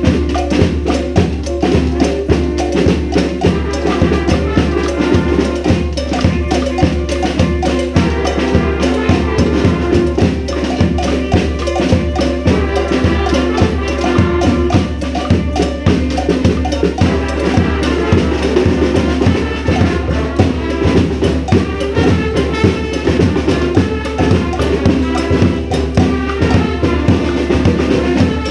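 Brass band playing a salsa tune: horns holding notes over a busy, steady percussion beat.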